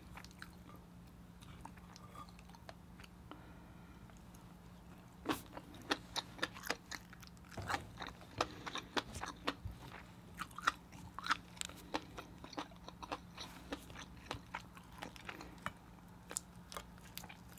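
Close-miked chewing and lip smacking of seafood dipped in fish egg sauce: a run of short wet clicks that starts about five seconds in.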